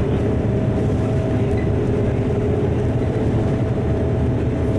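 LiAZ-4292.60 low-floor city bus heard from inside the passenger cabin while under way: a steady engine and drivetrain drone with road noise, and a steady whine running over it.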